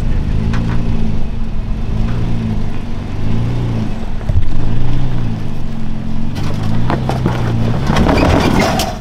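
Toyota Tacoma pickup's engine revved in repeated short bursts of throttle, pitch rising and falling several times, as it bumps up a rock ledge in four-wheel drive. In the last few seconds the tires scrabble on the rock and dirt with a loud scraping crackle over the engine.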